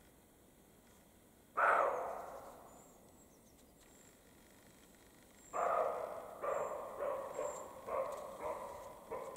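European roe deer barking. A single bark comes about a second and a half in and echoes as it dies away. A run of about six short barks, between one and two a second, starts about five and a half seconds in.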